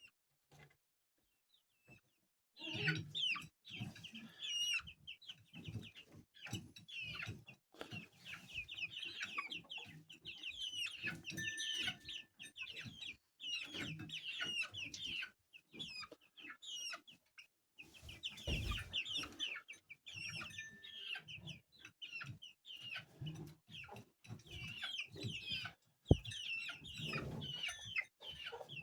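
Chickens clucking and calling busily, many short overlapping calls, starting about two and a half seconds in, with a single knock near the end.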